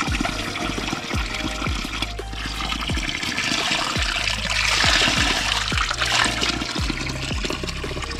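Water running and splashing from a spring, over background music with a low beat.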